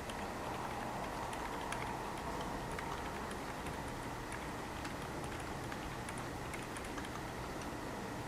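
Typing on a mechanical keyboard with Akko Fairy silent linear switches, in a Qwertykeys QK75N with an aluminium plate and full foam: soft, muted key taps, irregular, over a steady hiss from the camera microphone.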